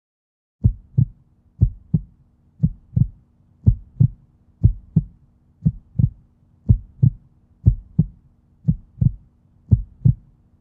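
Heartbeat sound effect: a steady double thump, lub-dub, about once a second, starting just under a second in, over a faint low hum.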